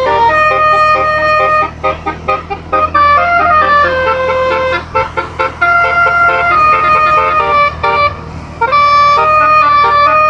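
A 12-note basuri 'telolet' air horn, its row of horn trumpets played note by note from a MIDI module to sound a melody. It holds some notes and steps between pitches, with runs of quick short toots about two and five seconds in, over a steady low hum.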